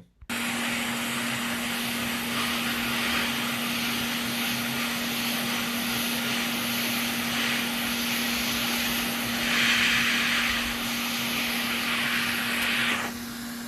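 Hot air rework station blowing a steady hiss over a constant low hum, heating the solder to lift off a PS5's HDMI port. The hiss swells briefly about ten seconds in and drops near the end.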